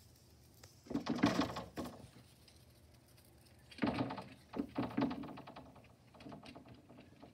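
Two small dogs, a Yorkshire terrier and a black curly-coated dog, play-fighting, heard as four short bouts of scuffling noise, the loudest about a second in.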